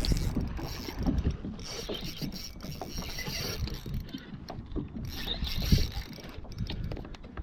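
Fishing reel being cranked to retrieve a lure: a dense run of small clicks and gear whir.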